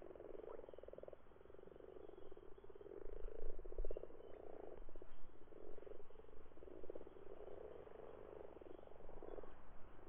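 A chorus of common frogs croaking: low, rapidly pulsed, purring croaks that overlap one another without a break. This is the breeding-season call of males gathered in a spawning pond.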